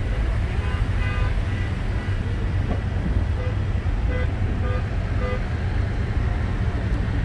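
A line of cars and pickup trucks rolling slowly past with engines running and a steady low rumble, while car horns give short toots again and again at a few different pitches.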